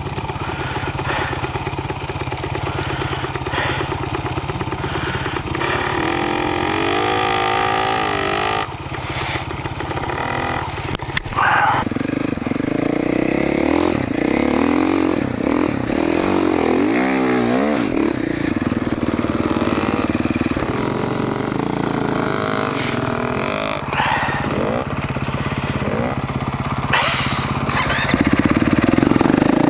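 2021 GasGas MC450F dirt bike's 450 cc single-cylinder four-stroke engine running as it rides across sand, the revs rising and falling several times. It gets louder near the end.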